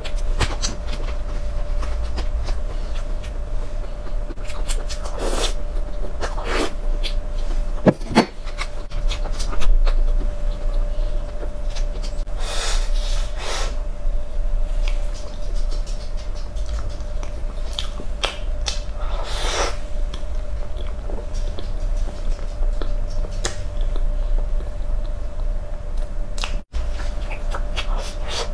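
Close-miked eating: bites into soft choux cream puffs, chewing and mouth sounds coming at irregular moments, with two sharp clicks near the middle, over a steady background hum.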